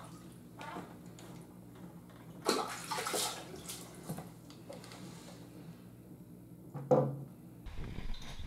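Wet squishing and handling noises as a freshly caught trout is gutted by hand, with a louder burst about two and a half seconds in and a short sharp knock near seven seconds.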